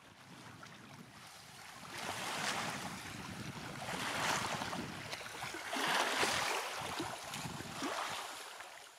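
Waves washing in against a shore, fading in and then swelling and ebbing about four times before fading out.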